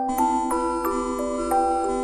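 Synthesized bell-like melody from an emergency alert: chiming notes step in pitch about three times a second over several held tones.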